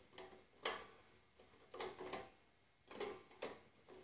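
A handful of short, irregular metallic clicks and scrapes as the idler pulley on a Snapper rider's mower deck is worked by hand, its self-locking nut being backed off. The sharpest click comes about two-thirds of a second in.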